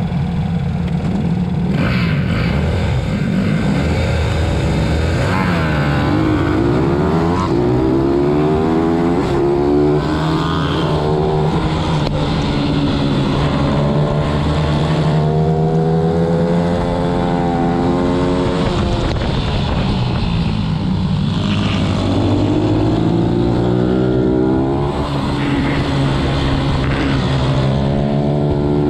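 Racing pit bike's single-cylinder four-stroke engine heard on board, held at steady revs for the first couple of seconds, then revving hard. Its pitch climbs and drops again and again as it runs up through the gears and slows for corners.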